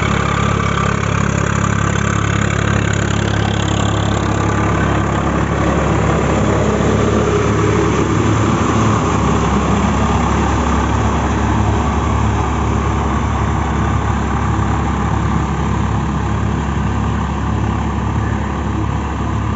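Swaraj 744 FE tractor's three-cylinder diesel engine running steadily under load, driving a rotary tiller through wet mud.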